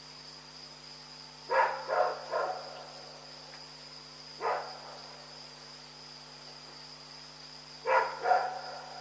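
A dog barking: three quick barks about a second and a half in, a single bark a few seconds later, and two more near the end. A steady high-pitched hum runs underneath.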